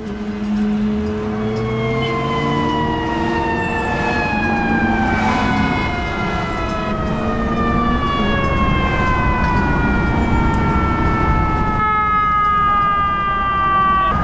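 Fire engine's mechanical siren winding down: a long, slowly falling wail of several overlapping tones, over a steady low traffic rumble.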